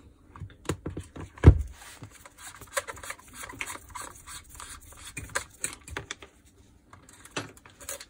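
Screwdriver scraping and clicking at the carbon-brush holder caps on a Makita 9227C polisher's motor housing as the brushes are unscrewed and taken out, with one sharp knock about one and a half seconds in and small irregular ticks and scratches after it.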